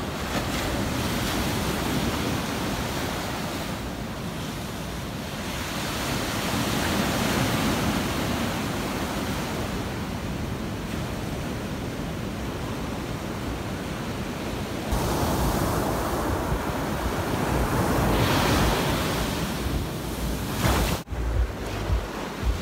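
Ocean surf breaking and washing up a sandy beach among rocks, swelling and easing in slow surges. In the later part, wind buffets the microphone with a low, gusty rumble.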